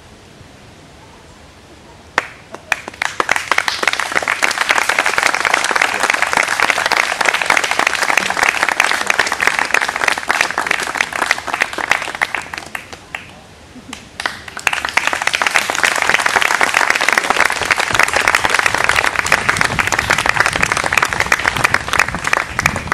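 Audience applauding, a dense patter of many hands clapping. It starts about two seconds in, dips briefly just past halfway, then swells again.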